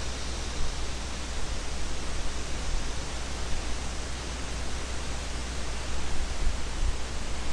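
Steady, even hiss with a low hum underneath: unbroken background noise on a desk microphone.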